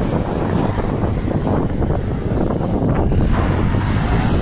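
Small commuter motorcycle engine running as the rider turns the bike on loose dirt, with wind rumbling on the microphone.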